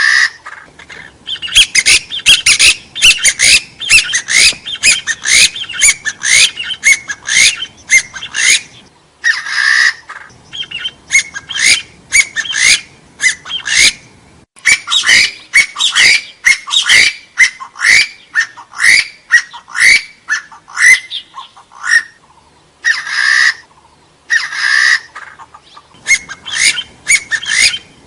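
Hill-partridge (gà so, genus Arborophila) calling: rapid runs of short rising whistled notes, several a second, repeated over and over as a hunting lure. A few brief harsh, hissing bursts break in among them.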